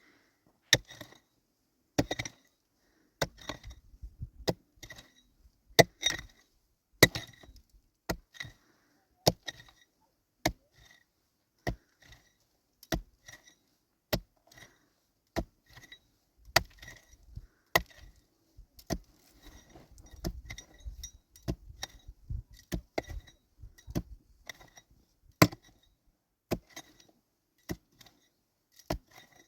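A hand tool striking wood again and again: sharp, separate knocks at an uneven pace, about one or two a second, each with a short ring.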